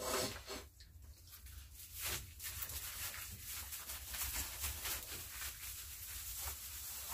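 Puppies moving about on dry straw bedding: a steady rustling and scuffing with small taps, after a short puppy whimper right at the start.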